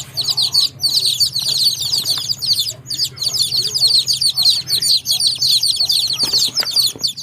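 A group of baby chicks peeping without pause, many short high chirps that slide downward and overlap one another, over a steady low hum.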